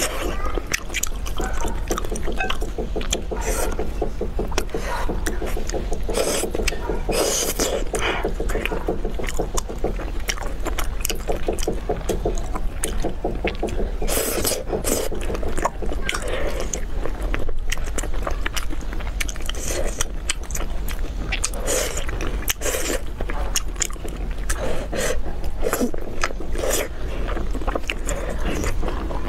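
Close-miked wet chewing and slurping of pork in thick sauce, with many small sticky, smacking clicks of mouth and food that go on without pause.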